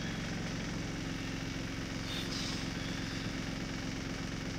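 Bus engine idling steadily while the bus stands still, heard from inside as a constant low rumble.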